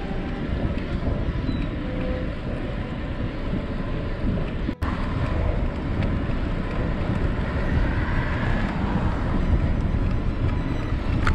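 Wind buffeting the microphone of a bike-mounted action camera while riding at about 20 mph, a steady low rumble that cuts out for an instant near the middle.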